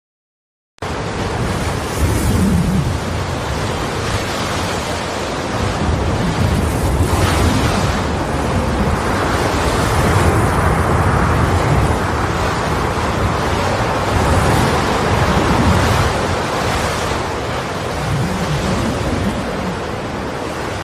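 Horror ambience sound effect: a loud, steady rushing noise with a deep rumble underneath. It starts abruptly about a second in and cuts off suddenly.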